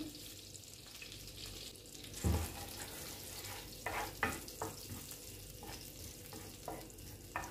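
Cumin seeds sizzling in hot oil and butter in a tawa, stirred with a wooden spatula that knocks against the pan several times. A dull thump about two seconds in is the loudest sound.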